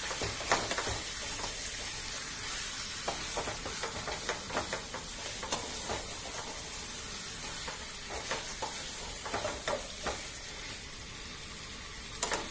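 Chicken and spice masala sizzling in oil in a kadai while a spatula stirs and scrapes it, in the slow kosha frying stage. A steady sizzle runs under scattered spatula scrapes and clinks on the pan, with a louder burst of scraping near the end.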